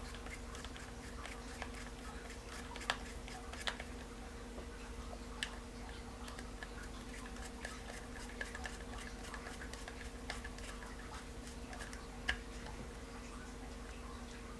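Scattered small clicks and taps of a screwdriver, screws and small metal parts being handled while a spinning fishing reel is put back together, over a steady low hum.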